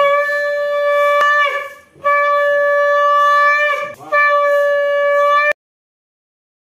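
Conch shell (shankha) blown in three long blasts, each a steady note that sags in pitch as it ends. The sound cuts off suddenly a little over halfway through.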